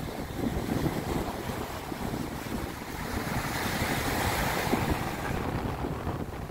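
Small waves breaking and washing up a sandy shore, with a louder wash of surf around the middle. Strong wind buffets the microphone with a steady low rumble.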